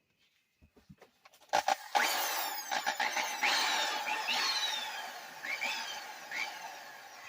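Rockwell Model 82 electric drill with a 1/2 inch bit boring into material: a few clicks, then the drill runs loudly under load from about a second and a half in, easing off near the end.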